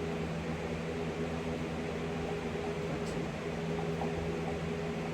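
Electric fan running steadily: an even whoosh of air with a constant low hum underneath.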